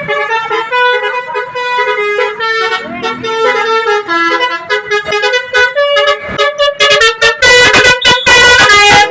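Multi-tone "telolet" bus horn playing a quick tune, with several notes sounding together and stepping from pitch to pitch. About seven seconds in it turns louder and harsher, in short, choppy blasts.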